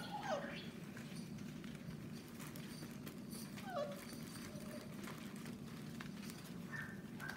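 Puppies giving a couple of short falling yelps, one near the start and another a little under four seconds in, over a steady low hum.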